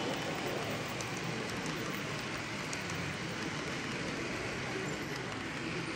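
Model train of passenger coaches rolling past on the layout's track: a steady rushing sound of small wheels running on rail, with faint light ticks.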